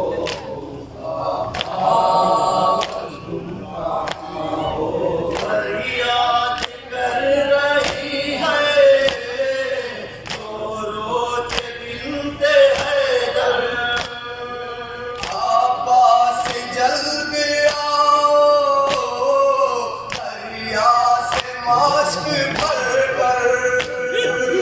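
A group of men chanting a Shia noha (mourning lament) together, voices rising and falling in a sung melody. Sharp hand slaps on the chest (matam) keep a steady beat under the chanting.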